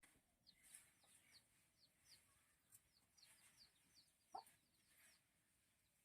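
Faint chicken sounds: a run of short, high, falling peeps, with one louder, lower call about four seconds in.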